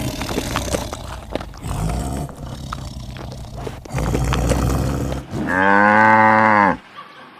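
A cow mooing once: one loud, steady call of just over a second near the end. Before it, a low rumbling noise with scattered clicks.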